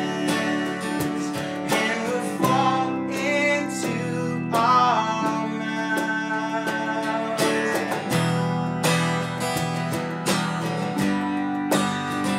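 A small band playing live: a strummed acoustic guitar over an electric keyboard, with cajon beats and an electric guitar.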